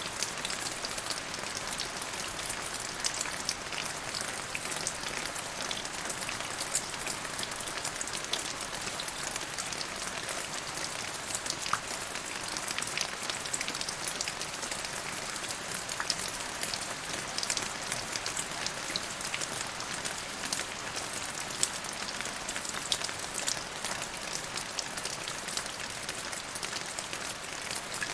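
Steady rain falling on a surface: an even hiss with many individual drops ticking sharply throughout.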